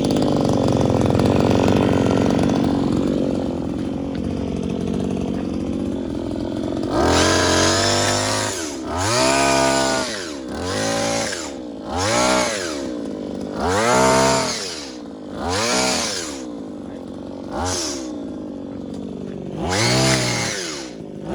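Brush cutter engine driving a hedge-trimmer attachment. It runs steadily for about seven seconds, then is revved up and let back down about eight times in quick succession as the blades cut through the hedge.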